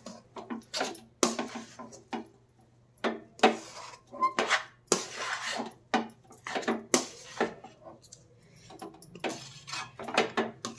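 Steel spoon scraping and clinking against a stainless steel kadhai while stirring a thick sesame, peanut and jaggery-syrup mixture, in irregular strokes with brief pauses.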